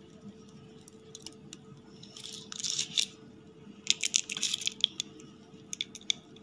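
A block of cheese grated on a flat stainless steel hand grater, in two short bursts of scraping strokes about two and four seconds in, followed by a few light clicks near the end.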